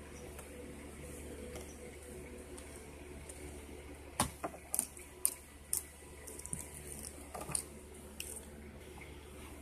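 Soft slime being kneaded and poked by hand, giving off a run of sharp wet clicks and air-bubble pops from about four seconds in to near the end, over a low steady hum.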